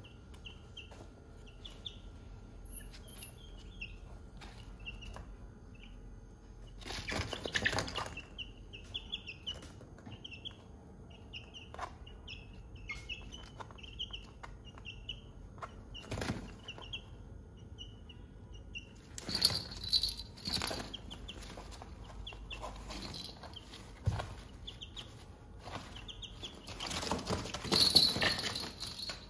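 Young chickens peeping and clucking softly on and off, with three bouts of wing flapping and scuffling: about a quarter of the way in, about two thirds in, and loudest near the end.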